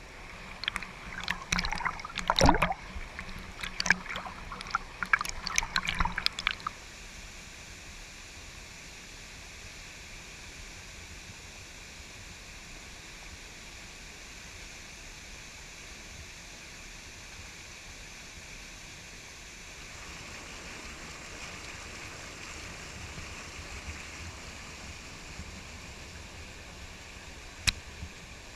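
Waterfall water rushing as a steady, even noise, slightly stronger in the last third. During the first seven seconds or so a run of irregular sharp clicks and knocks sits over it, and there is a single click near the end.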